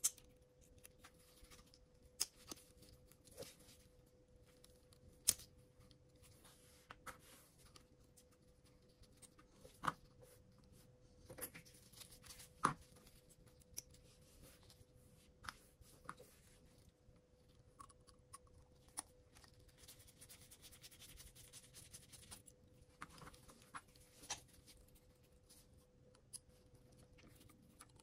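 Faint, irregular clicks and taps of small tools and parts being handled while a DJI Mini 3 Pro gimbal is taken apart, over a faint steady hum.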